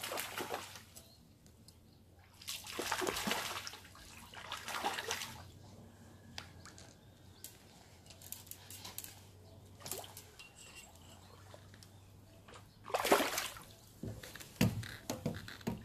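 A hooked fish splashing and thrashing at the surface of a pond, in several irregular bursts: one right at the start, two more a few seconds in, then another cluster near the end as the pole is lifted.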